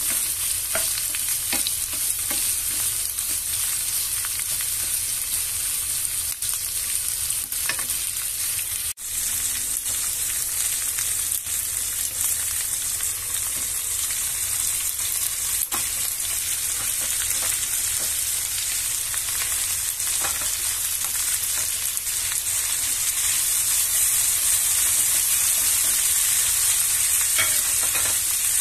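Carrots, onions and sliced meat sizzling as they stir-fry in a nonstick pan, a steady hiss with a wooden spatula scraping and clicking against the pan now and then. The sizzle grows a little louder near the end.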